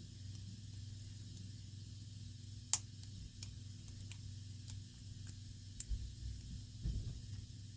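Faint metallic clicks of a hook pick and tension wrench working the pins inside a Brinks padlock, with one sharper click about three seconds in, over a low steady hum.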